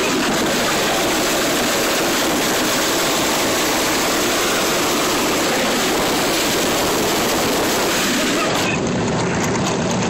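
Loud steady rush of wind and tyre noise from a moving car, picked up at its open window with the microphone out in the airstream. The hiss in the upper range drops off sharply about nine seconds in.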